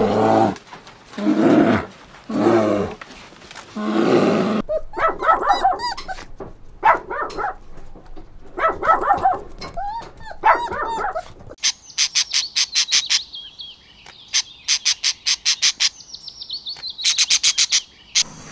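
A run of animal calls. First, four low, rough bear calls about a second apart. Then a dog barking and yelping in short pitched bursts for about seven seconds, and finally a parrot's fast, high chattering calls in quick trains.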